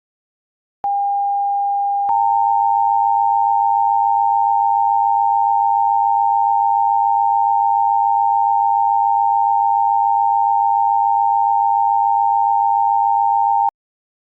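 Emergency Alert System–style attention signal: a steady electronic tone starts about a second in, steps up slightly louder with a faint pulsing beat about two seconds in, and holds for about eleven seconds before cutting off abruptly near the end.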